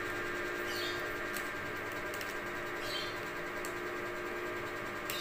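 Faint clicks of a tripod quick-release plate being screwed onto a DSLR camera by hand, over a steady hum, with a short high chirp about every two seconds.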